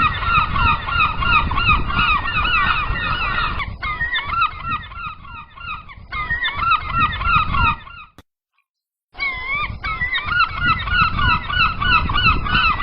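A flock of gulls calling all at once, many loud wavering cries overlapping over a low rumble. About halfway through the calls thin out and fade, cut to silence for about a second, then return as dense as before.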